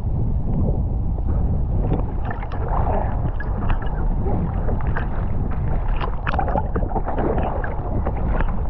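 Choppy water sloshing and splashing against an inflatable wing-foil wing floating on the surface, with a low wind rumble on the microphone. It sounds muffled, with many small irregular splashes.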